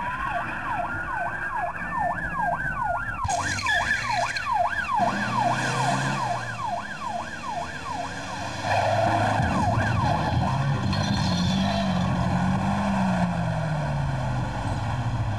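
Emergency-vehicle siren sounding a slow wail that switches to a fast yelp about three seconds in, sweeping up and down about three times a second. The siren stops about nine seconds in, leaving a vehicle engine rising and falling in pitch over road noise.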